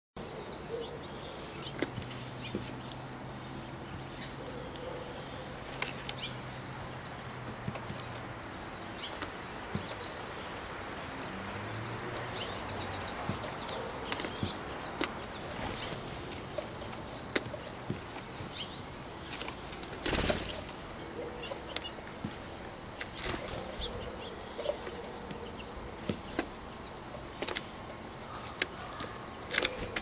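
Back-yard outdoor ambience: a steady noise bed with a faint low hum, short high bird chirps, and scattered sharp taps and ticks. About twenty seconds in comes a brief, louder rush of noise.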